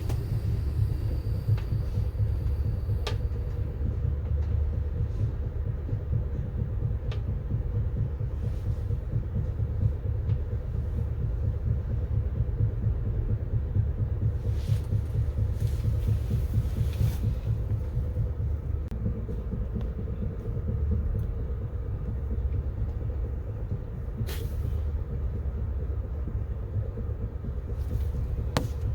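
Amtrak Empire Builder passenger train rolling along the track: a steady low rumble with a faint steady hum and scattered short clicks.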